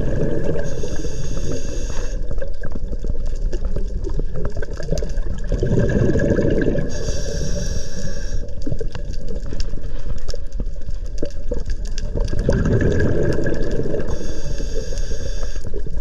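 Scuba diver breathing underwater through a regulator: a bubbling gush of exhaled air alternates with the regulator's hiss on each inhale, about one breath every six to seven seconds, three breaths in all.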